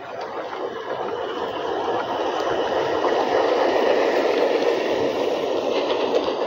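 An LGB G-scale model train, a steam tank locomotive hauling coaches, rolling past on garden track: the rumble of its wheels on the rails and its running gear, growing louder over the first few seconds as it draws near, then holding steady.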